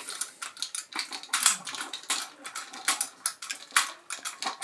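Irregular metallic clicks and clinks as the steel winding handle is fitted onto the spring-motor hub of an AKS-1 35 mm cine camera.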